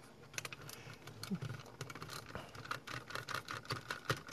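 A small Phillips screwdriver backing screws out of a plastic headphone ear cup: faint, irregular clicks and scratches from the screwdriver tip and the handled plastic.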